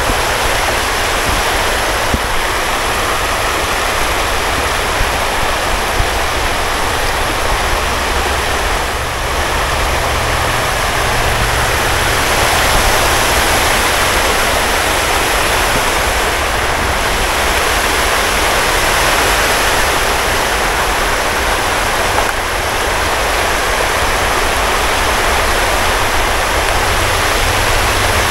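Water rushing steadily over a shallow rocky riffle, a loud, even white-water noise, with a low rumble underneath.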